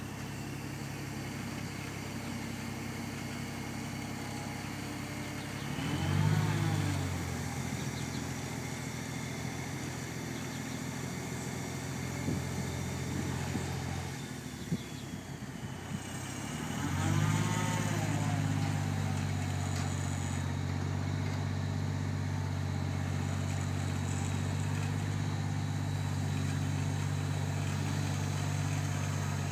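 Boom truck's engine running steadily, revving up briefly about six seconds in, then revving again about seventeen seconds in and holding at a higher speed to drive the crane's hydraulics as it holds the lifted corn crib roof.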